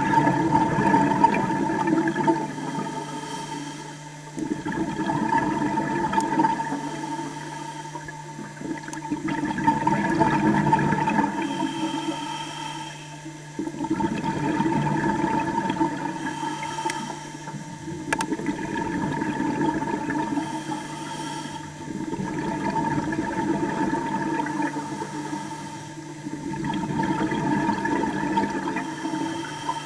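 Water rushing and bubbling, heard underwater, swelling and fading about every four to five seconds over a steady hum.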